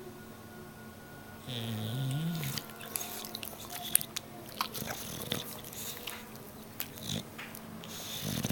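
English bulldog asleep: a short wavering, pitched snore about one and a half seconds in, then a string of clicks and smacks from its mouth, and a louder snore near the end.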